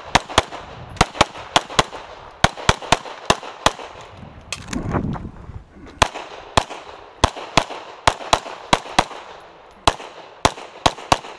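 Semi-automatic pistol, a SIG P320 with a Lockwood slide kit, fired rapidly at close targets: about two dozen sharp shots in quick pairs and strings, with a break of about a second near the middle.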